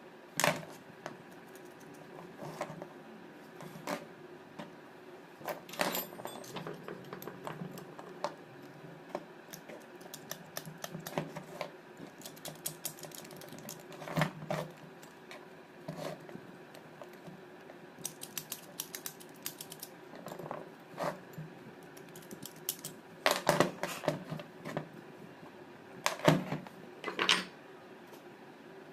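Irregular clicks, taps and knocks of small tools and alternator rotor parts being handled on a wooden workbench during slip-ring work, with a cluster of louder knocks in the last few seconds.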